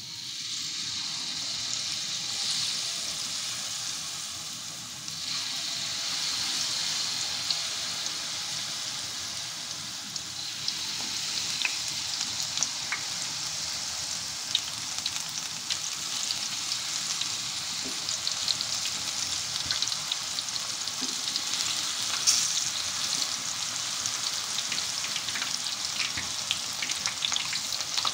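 Rempeyek batter of rice flour and mung beans sizzling as it deep-fries in hot oil in an aluminium wok, the sizzle starting as the first ladleful goes in and growing louder in steps about five and ten seconds in as more batter is added. From about halfway there are scattered clicks, getting denser near the end, as a slotted metal spatula knocks against the wok.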